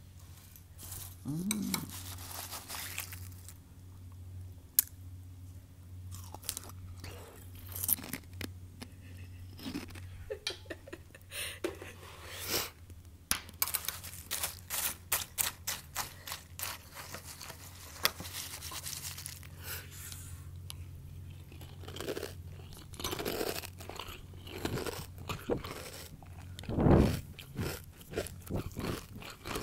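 Crunching and chewing of Kellogg's Frosties cereal, many short sharp crunches one after another. A low steady hum sits underneath in the first part, and a brief loud voice sound comes near the end.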